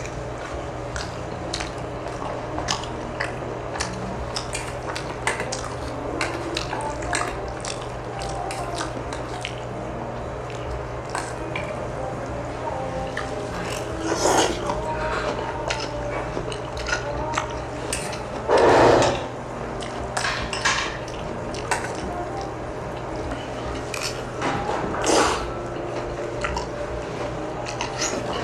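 Close-miked eating sounds: chewing, with metal chopsticks or spoon clicking and clinking against bowls many times. Three louder, longer noisy sounds come about a third of the way in, past the middle and near the end.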